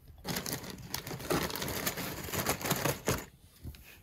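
Rapid clicking and rustling as small gold-tone novelty finger rings are handled on the fingers, stopping a little after three seconds in.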